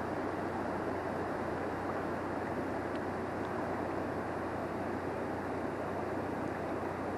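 Steady rush of flowing river water, an even hiss without pauses or changes.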